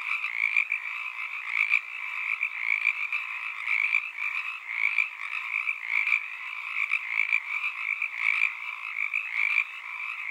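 A continuous night chorus of many calling animals, a dense high-pitched chatter that swells and fades unevenly, with no low sounds beneath it.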